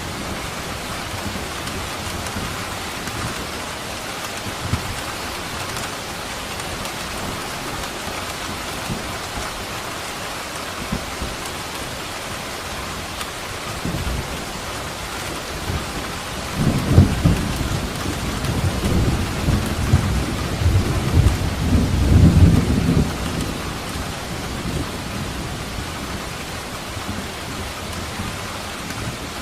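Steady rain falling, with a rolling thunderclap rumbling low from a little past halfway for about six seconds before it fades.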